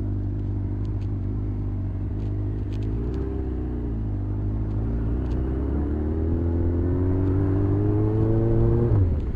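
Motorcycle engine running under way, heard from the pillion seat: a steady note that rises gradually for several seconds as the bike accelerates, then falls sharply near the end.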